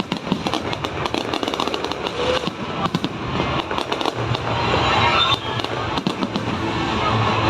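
Fireworks bursting and crackling in rapid succession, a dense run of sharp pops. Music comes in under them and grows louder over the second half.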